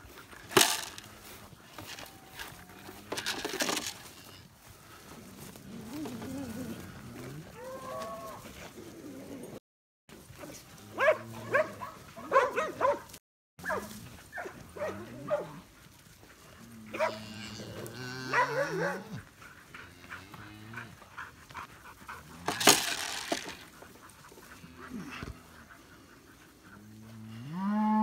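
Blue Lacy herding dogs barking and whining as they push longhorn cattle, with cattle lowing now and then; near the end a longhorn gives a loud moo. The sound cuts out briefly twice.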